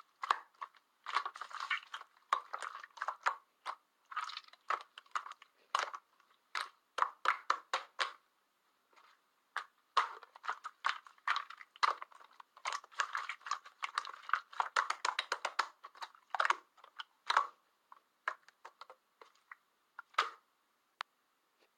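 Slime being squished and kneaded by hand, giving a dense, irregular run of small wet clicks and pops.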